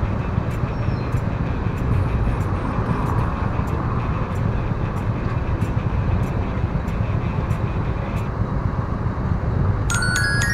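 Steady motorcycle engine and street traffic noise, with a faint regular ticking about every two-thirds of a second. Chime-like music tones come in near the end.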